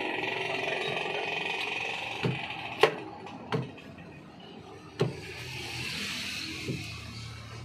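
A claw hammer knocks on a wooden shipping crate's plank lid as it is worked open: about five sharp knocks, irregularly spaced. An engine hum fades out over the first two seconds.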